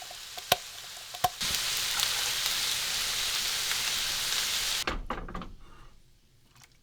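Beef stew ingredients sizzling in a hot pot, with a couple of sharp clicks of a utensil against the pot. About a second and a half in the sizzle turns suddenly louder and steady. It stops about five seconds in and dies away to near quiet.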